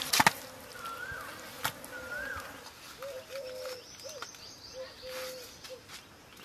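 A knife chopping through a rohu fish on a banana leaf gives a few sharp knocks at the very start. Birds call: two short rising-and-falling whistles, then a run of short, lower calls repeated from about halfway.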